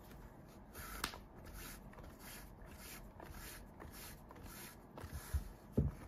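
Chunky t-shirt yarn being worked with a crochet hook by hand: a series of soft rustling swishes, about two a second, as the yarn is drawn through the stitches. Two dull low thumps come near the end.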